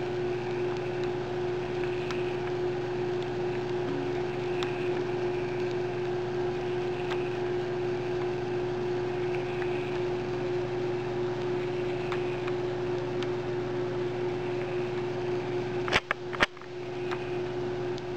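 Aqua Medic peristaltic dosing pump running: a steady motor whine and hum, with a faint regular pattern about once a second as the roller heads turn. About 16 seconds in, a couple of sharp clicks come and the sound briefly cuts out.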